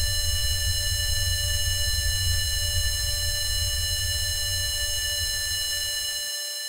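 Sound-design drone: a loud low rumble under a steady, high-pitched ringing tone. The rumble cuts off abruptly about six seconds in, leaving the ringing alone.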